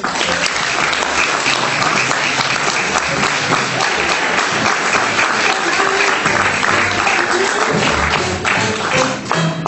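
Audience applause breaking out all at once over music, thinning to scattered separate claps near the end.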